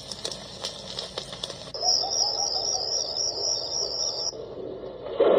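Alarm-clock lamp's built-in sound machine playing its nature sounds as the tracks are stepped through: first a track of scattered clicks, then about two seconds in a high warbling chirp track that cuts off a little after four seconds. Near the end another, louder track starts.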